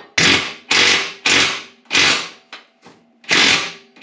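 Hand ratchet wrench being swung in repeated strokes, about one every two-thirds of a second, each a quick burst of ratchet clicking, while tightening a bolt on the plow mount.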